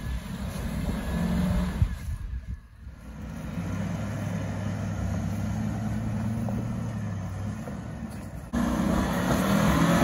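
Land Rover LR3's engine running at low revs as the truck crawls through a deep rut on a dirt trail, a steady low hum that turns suddenly louder near the end.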